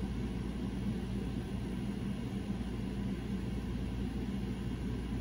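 Motorized display turntable running with a steady low hum.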